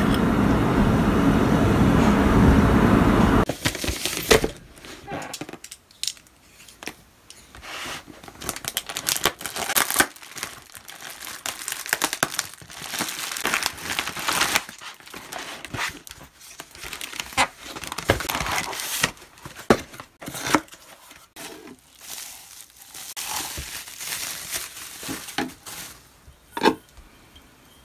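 Parcel being unwrapped by hand: plastic air-cushion packaging and a padded envelope crinkling and rustling in irregular handfuls, with short tearing sounds. It is preceded by a steady low rumbling noise that cuts off suddenly a few seconds in.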